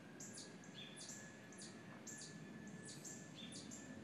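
Faint birdsong: short, high chirps that step down in pitch, repeating about twice a second.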